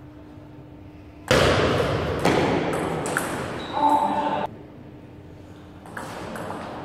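Table tennis rally: the ball clicks off the bats and the table. About a second in, a sudden loud rushing noise comes up, surges again, and cuts off about halfway through. The clicks continue near the end.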